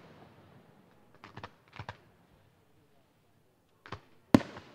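Aerial firework shells bursting. The fading echo of earlier bangs is heard at the start, then small clusters of sharp pops about a second and two seconds in, another pop near four seconds, and a loud bang near the end.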